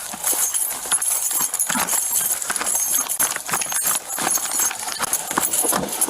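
Quick, uneven footfalls with rustling and jostling of clothing and gear, as of an officer running on foot, picked up close by a body-worn microphone.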